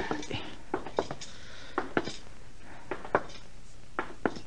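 Footsteps and knocks on a wooden floor, a radio-drama sound effect, come as a dozen or so irregular sharp taps over the steady hiss of an old broadcast recording.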